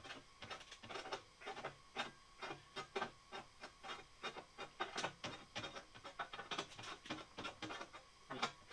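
Adjustable wrench gripping and levering the bent flange of a 10-gauge steel sheet-metal pan, a run of irregular short metallic clicks and scrapes several times a second as it is worked along the edge. The flange is being bent slightly open to correct a too-tight brake bend so the pan joints line up.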